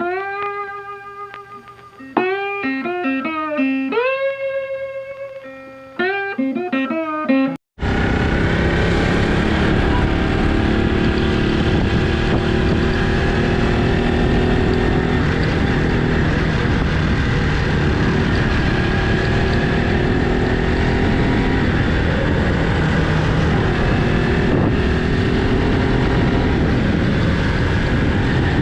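A short run of plucked guitar notes, each ringing and fading, that cuts off abruptly after about eight seconds. Then the steady, dense noise of a motorcycle being ridden takes over: engine and wind noise.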